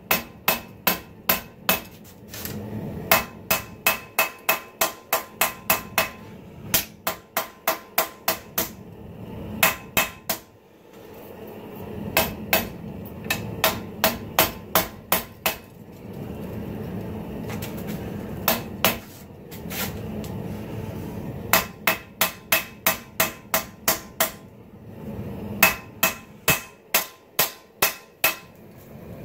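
Hand hammer striking red-hot 80CrV2 steel on a cast steel anvil, drawing out the blade of a bowie knife. The blows come in runs of about two to three a second, each with a short metallic ring, broken by a few pauses.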